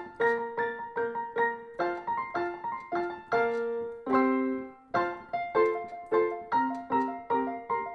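Background piano music: a steady run of single notes, about two or three a second, with one longer held note about four seconds in.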